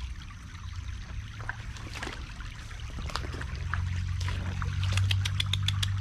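Shallow creek water trickling. A low steady hum grows louder through the second half, and a quick run of sharp clicks comes near the end.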